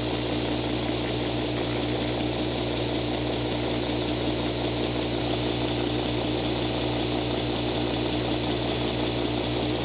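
Belt sander running steadily with an abalone shell inlay blank held against the moving belt, being sanded down to fit its fretboard cavity: a steady motor hum under a high hiss.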